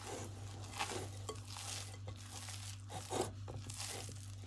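Hand kneading and punching down risen yeast dough in a ceramic bowl: soft, sticky squishing and tearing of the dough, with a few light knocks of hand and dough against the bowl.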